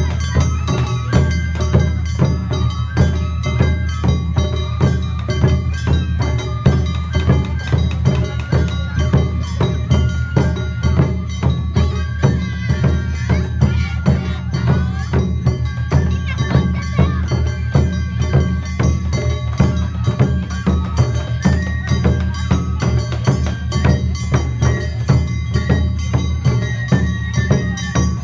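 Live Japanese festival music of a 'ren' dance troupe: a high melody stepping between held notes over fast, steady percussion beats and a heavy low drone, going on without a break.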